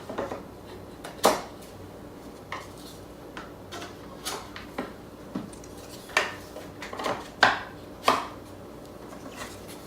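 Display case panels clicking and knocking against each other as the bottom pieces are fitted into a side panel's slots. The knocks are sharp and separate, with a quicker cluster of them about two thirds of the way through.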